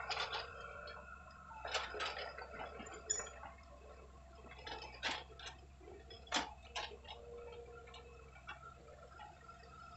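Excavators running at work, a steady engine drone under irregular sharp clicks and metallic knocks, the loudest about two, three, five and six and a half seconds in.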